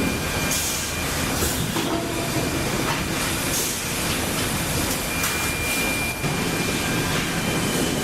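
Multi-blade bandsaw resaw line in a sawmill running: continuous dense machinery noise with a thin, steady high whine that comes and goes, and several brief hissing rushes.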